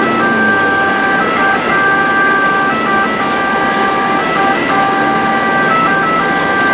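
Ambulance two-tone siren sounding continuously, its notes shifting back and forth, heard from inside the cab over engine and road noise.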